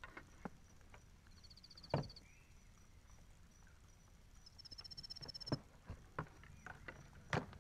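Quiet outdoor sounds: a sharp knock about two seconds in and another near the end, with a few smaller ticks between. A high, fast-pulsing trill sounds twice, the second one longer.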